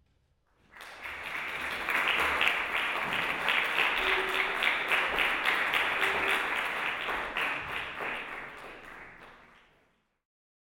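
Audience applauding: many hands clapping, starting about a second in, quickly building, then dying away near the end.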